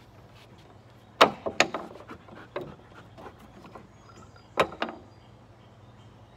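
A dog's paws and claws knocking and scraping on wooden deck boards as it turns quickly: a cluster of sharp knocks about a second in, scattered smaller ones, then another pair of knocks a little before the end.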